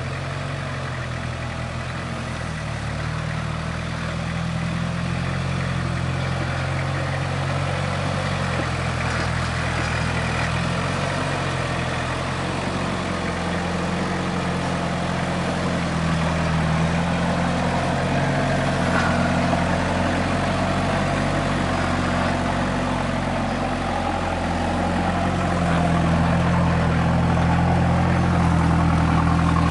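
Engine of a caged off-road 4x4 ute running at low revs as it crawls slowly over rock steps, with the throttle eased up a little about halfway through and again near the end.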